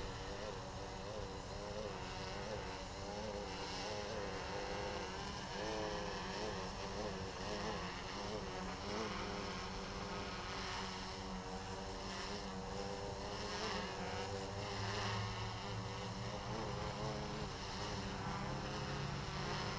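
Hoverthings Flip Sport quadcopter's brushless motors and propellers buzzing, the pitch wavering up and down throughout as the quad is flown through quick directional changes.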